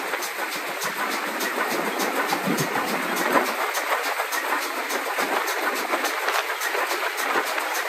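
GWR 4200-class 2-8-0 tank locomotive No. 4270 hauling its train along the line, heard from just behind its smokebox: a steady rush of running noise with a fast, even beat over it.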